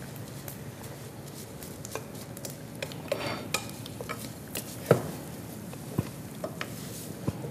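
Metal spoons stirring and knocking against steel cooking pots on a stove, with scattered sharp clinks, the loudest about five seconds in, over a faint steady sizzle from a pan on the heat.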